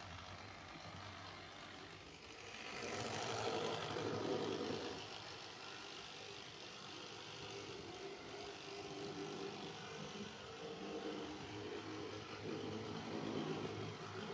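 Vintage Rivarossi HO-scale electric shunting locomotive with a Trix motor running along model railway track, its small motor whirring and its metal wheels rolling on the rails. It gets louder for a couple of seconds about three seconds in, and again near the end.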